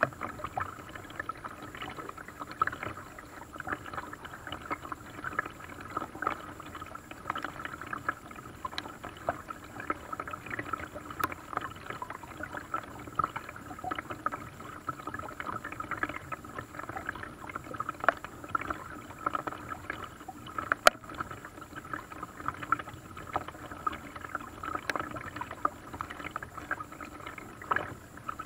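Water splashing and lapping around a paddled small boat, with many small irregular splashes and one sharp knock about two-thirds of the way through.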